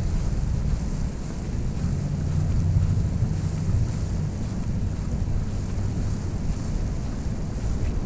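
Snowstorm wind buffeting the microphone: a steady low rumble with a fainter hiss above it. A faint low drone comes in about two seconds in and fades about four seconds in.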